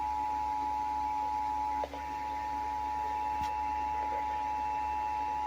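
Emergency Alert System attention signal on FM radio: the steady two-tone alarm (853 Hz and 960 Hz sounded together), held continuously with a brief dip about two seconds in. It signals that an emergency bulletin, here a tornado warning, is about to be read.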